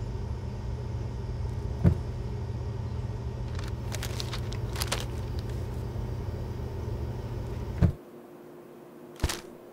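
Steady low refrigerator hum while a paper-wrapped package is handled and unwrapped, the paper crinkling, with a thump early on and another about eight seconds in. The hum then cuts off, leaving a quieter room and a single short knock near the end.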